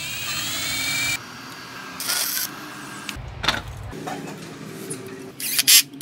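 Electric drill spinning a ceiling fan motor's rotor, its whine rising in pitch for about a second as it speeds up, followed by a run of short, changing mechanical workshop noises with a few clicks near the end.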